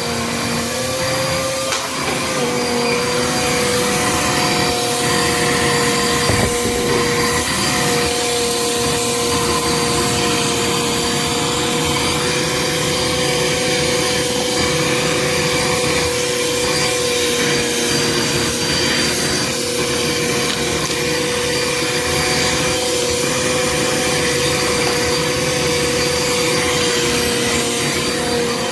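Small Bissell vacuum cleaner running steadily, its motor whine holding one pitch, with a rough gritty crunching from the brushroll picking up dirt.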